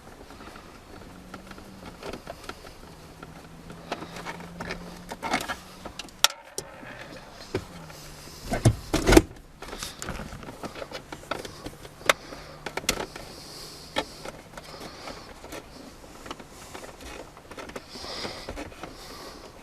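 Scattered clicks, knocks and plastic rattles of a car door's interior trim panel being unscrewed and prised off its clips, with a cluster of louder knocks about nine seconds in. A faint steady hum runs underneath.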